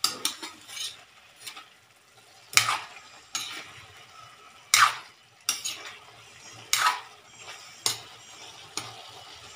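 Metal spatula stirring cubed pork in a large metal wok, scraping and knocking against the pan about eight times at irregular intervals, with a faint sizzle of the meat cooking in a little liquid between strokes.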